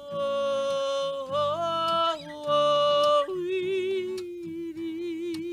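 A woman singing long held notes to acoustic guitar: the note steps up about a second in and comes back down, then drops to a lower note held with vibrato from about three seconds in.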